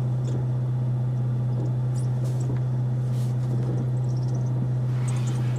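Dodge Charger running at idle, heard from inside the cabin as a steady low hum, while the windshield wipers sweep the glass with a few faint, short squeaks from the blades.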